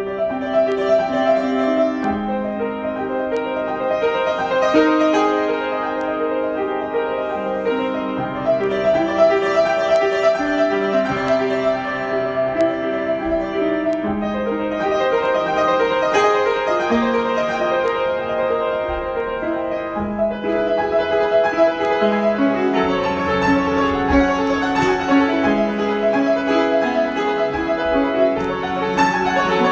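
Solo piano improvisation: chords and a melody line played continuously, notes ringing over one another.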